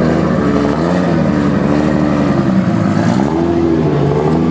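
BMW drift car's engine running close to its exhaust, its pitch dipping and rising again with light throttle blips, a clear rise about three seconds in.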